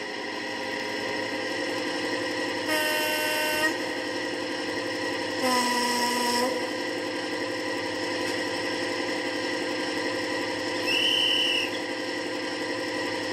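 Sound effects of a Class 55 Deltic diesel locomotive on a model railway: the twin Napier Deltic engines hum steadily throughout. A horn blast comes about three seconds in, then a lower horn note about five and a half seconds in, and a short high whistle sounds near the end.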